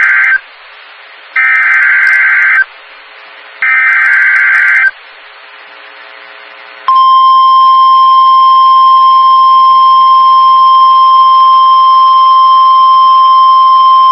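Emergency Alert System SAME header: the tail of one data burst, then two more bursts of about a second each with short gaps between. About two seconds later comes a loud steady single tone of about 1050 Hz, the warning alarm tone that signals an emergency alert is about to be read.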